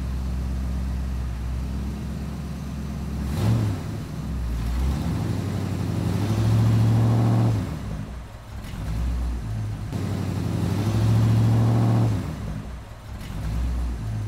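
Tractor engine sound running steadily at a low pitch, swelling louder twice as it revs, with a brief sharp knock about three and a half seconds in.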